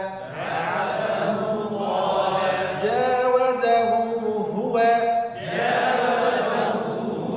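Voices reciting Quranic Arabic words together in a chanting cadence, drawing out the vowels: the pronoun ha with its small waw held for two counts.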